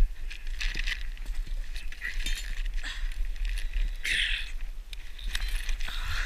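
Gloved hands gripping and tugging the ropes lashed over a tarp-covered sled load: rustling and scraping with scattered clicks and clinks, over a low rumble on the microphone.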